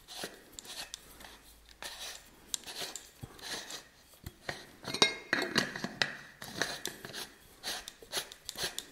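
Parts of a Wagner FC 5500 spray gun being handled and screwed back together by hand: irregular clicks, knocks and light clinks, the loudest clack about five seconds in.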